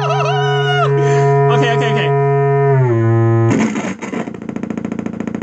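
Electronic tones from analog modular synthesizer oscillators, working after a power-supply repair. A steady low drone sits under a warbling higher tone that stops about a second in. After a short gliding sound the drone steps down in pitch, then cuts out a little past three seconds and gives way to a buzzy, rapidly pulsing tone.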